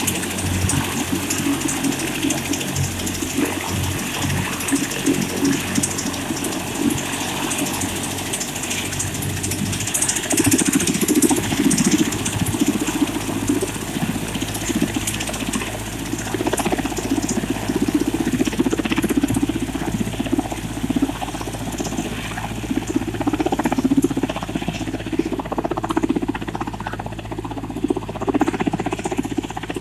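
Helicopter running on the ground or near it: a steady, loud engine and rotor noise, which deepens and grows rougher about ten seconds in.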